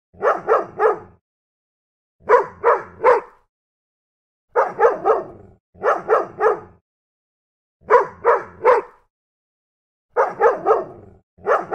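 A dog barking in quick sets of three sharp barks, about seven sets in a row with complete silence between them.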